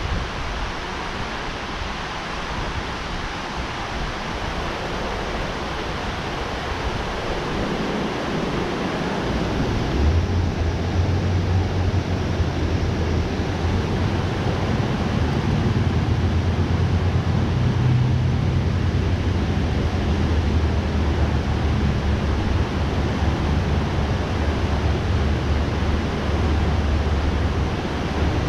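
Steady rushing water from a dam spillway, with a low wind rumble on the microphone from about ten seconds in.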